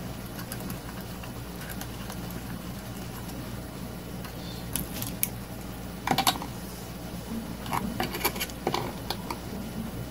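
Light clicks and taps of a hand tool working the mounting nut of a panel-mount fuse holder against a sheet-metal base, scattered from about five seconds in, over a faint steady hum.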